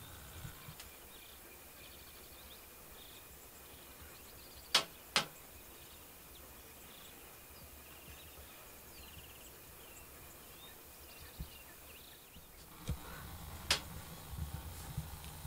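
Quiet outdoor ambience with faint bird chirps, broken by two sharp clicks about half a second apart some five seconds in and two more near the end.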